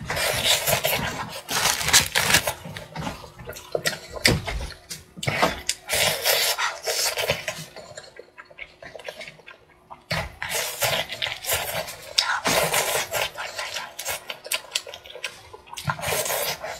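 Close-miked chewing of sauce-coated fried chicken: dense runs of crackly mouth clicks and chewing noises, easing into a lull of about two seconds near the middle before starting up again.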